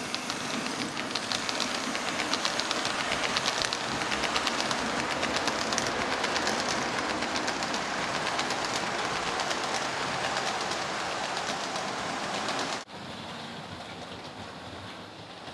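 HO-scale model train rolling past, its wheels and cars giving a steady rattle of rapid fine clicks over the track. Near the end the sound drops suddenly to a quieter hiss.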